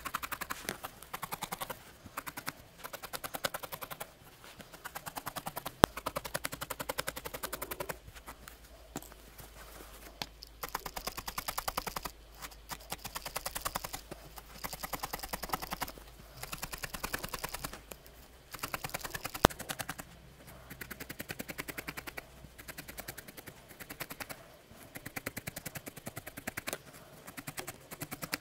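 A felting needle stabbing rapidly into a ball of wool over a burlap-covered felting pad: quick runs of soft, even pokes, each run lasting a couple of seconds with brief pauses between, and now and then a single sharper click.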